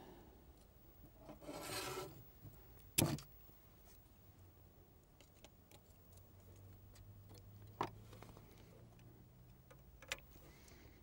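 A rusted, seized heatsink nut and screw being worked with pliers and a screwdriver on a ZX Spectrum circuit board: a short rasping scrape about one and a half seconds in, a sharp knock about three seconds in, and a few faint clicks later.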